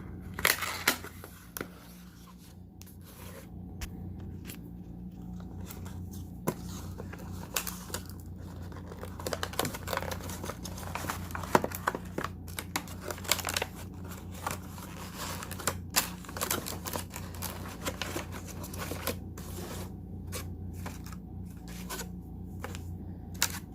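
Packaging being torn open and handled by hand: tearing and crinkling with scattered clicks and scrapes as the flashlight's box is opened, over a steady low hum.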